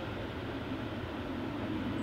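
Steady low rumble of a Boeing 777-300ER's GE90 jet engines on departure.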